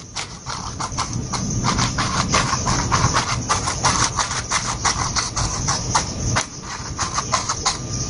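A wide flat bristle brush swept rapidly back and forth across a canvas, a fast run of scratchy strokes, several a second, as a clean brush blends and softens wet oil paint.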